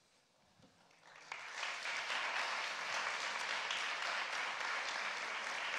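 An audience applauding. A few scattered claps about a second in quickly build into steady applause.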